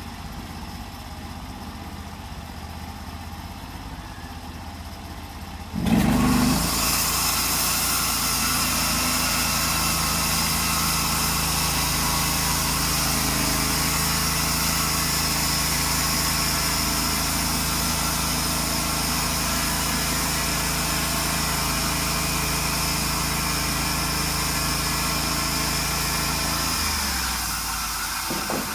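Sawmill engine idling, then about six seconds in it throttles up suddenly and runs steadily at speed with a hissing saw noise for about twenty seconds, easing back down near the end.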